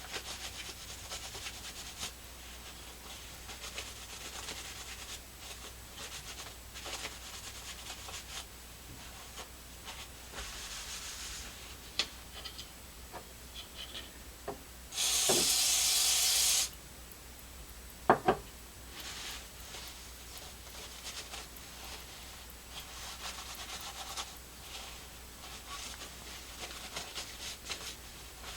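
Rubbing and handling of the parts of an opened TV remote, with a steady aerosol hiss lasting about a second and a half partway through: WD-40 sprayed from the can onto the circuit contacts and button pads. A couple of sharp clicks follow.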